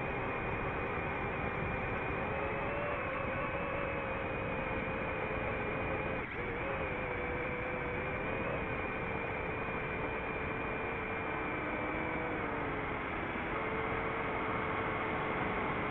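Multirotor drone's motors and propellers whirring steadily, recorded on the drone's own camera: a constant whine with a few held tones that waver slightly in pitch as the motors adjust, with a brief dip about six seconds in.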